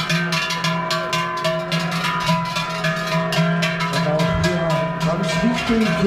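Many large cowbells on cattle clanging continuously and rapidly as the herd walks, over steady sustained tones.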